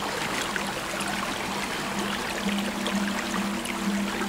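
Shallow creek water running and rippling over rocks, with soft sustained music notes coming in about halfway through.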